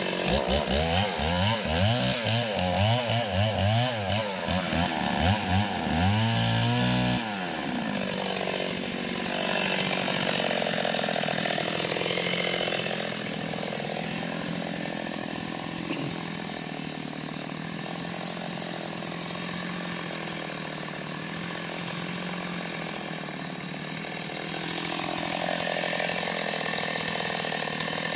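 Mini chainsaw's small two-stroke engine running, its pitch rising and falling over the first several seconds. After about seven seconds it settles into a steadier, slightly quieter run.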